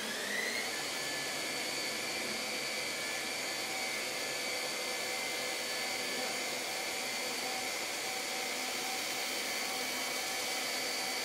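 CNC wood lathe's belt-sanding unit running against a spinning turned wooden leg. A whine rises in pitch over the first half second, then holds steady over an even hiss for the rest.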